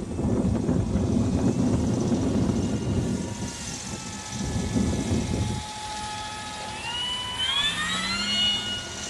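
Electric motor and propeller of a radio-control gyrocopter whining overhead, the pitch climbing about seven seconds in as the throttle is opened. A low rushing noise fills the first half.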